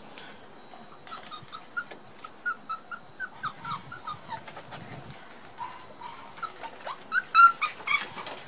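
Month-old Border Collie puppies yipping and whining in a string of short, high-pitched calls, about two or three a second, loudest about seven seconds in.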